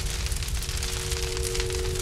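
Intro music: two sustained synth tones held over a dense crackling noise, the upper tone swelling near the end.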